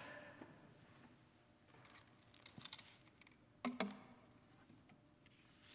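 Faint clicks and rustles of pages being handled at a lectern microphone, with one louder knock a little past halfway.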